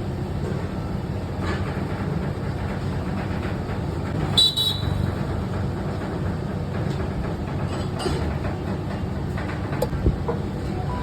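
Steady low rumble of street noise, with one short high toot about four seconds in and a few light clinks later.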